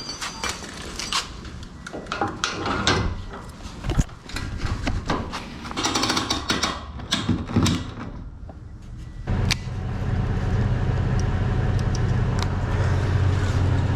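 Scattered knocks and clatter, then about nine seconds in a motor starts running with a steady low hum.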